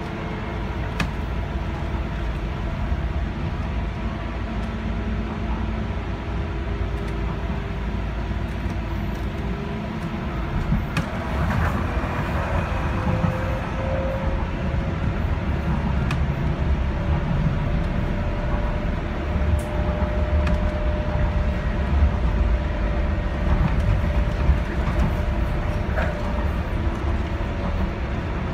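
Docklands Light Railway train running, heard from inside at the front window: a steady low rumble with a faint whine that rises a little in pitch about halfway through, and a few sharp clicks.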